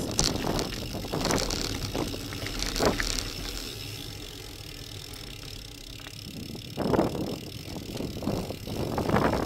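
Gravel bike rolling over a loose gravel lane: rumbling tyre noise with knocks and rattles over bumps, quieter in the middle and louder again about seven seconds in.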